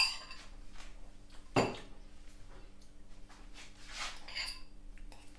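A metal fork knocking and clinking against a dish a few times while eating, the sharpest knock about a second and a half in.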